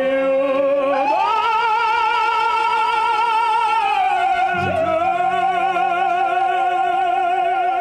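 Operatic voice holding long notes with wide vibrato, stepping up in pitch about a second in and dropping back lower about two-thirds through, where a low accompaniment comes in beneath it.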